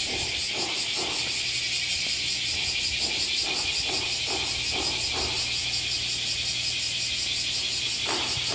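A high, insect-like buzz that pulses rapidly and evenly without a break, over a steady low hum.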